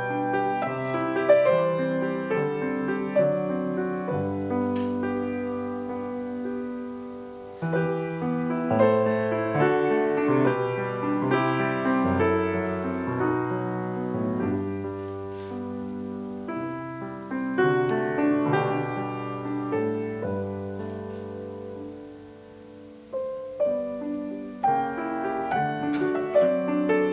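Grand piano played solo in a classical piece, long held bass notes under a melody. It grows softer toward about 22 seconds in, then comes back louder.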